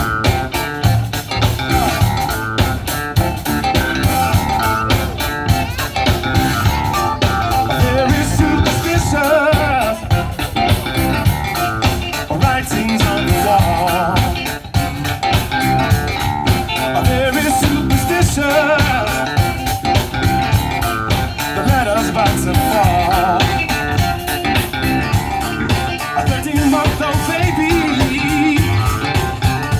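Live band playing: guitar over bass and drum kit, in a blues-rock groove.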